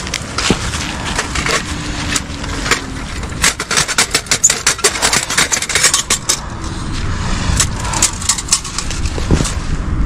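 Camping gear being handled and packed on dry leaf litter: rustling with sharp clicks and crackles, coming thick and fast for a couple of seconds in the middle.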